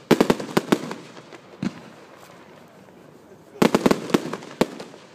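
Fireworks display: aerial shells bursting in sharp bangs, a rapid cluster of about seven right at the start and another a little past halfway, with single bangs between.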